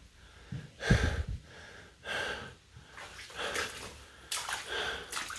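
A broom pushing shallow floodwater across a basement floor, a swish of water about once a second. There is a dull thump about a second in.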